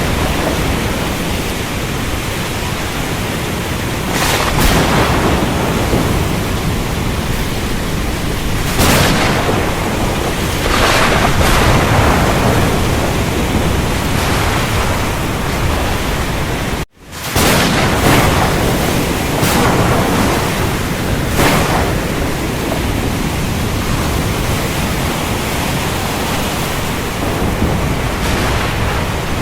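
Thunderstorm: steady heavy rain with rolls of thunder swelling every few seconds. The sound drops out abruptly for a split second about halfway through, then resumes.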